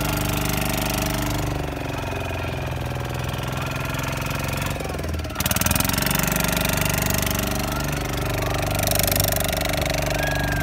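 A boat's engine running steadily as the boat moves over open water. About halfway it drops briefly and then comes back louder.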